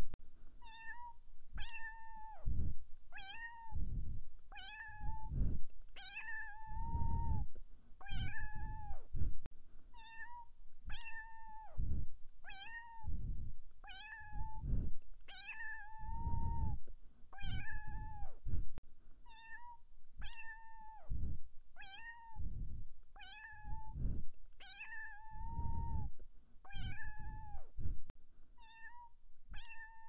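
Domestic cat meowing again and again, about one short meow a second. Each meow holds a steady pitch and drops at the end, and a few are drawn out longer.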